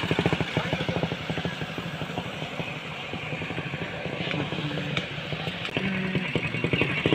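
Motorcycle engine running with an even, rapid firing beat, dipping a little in loudness in the middle and picking up again.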